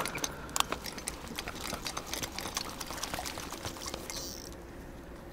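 Water splashing and dripping in shallow water, a quick run of small splashes and drops that thins out after about four seconds.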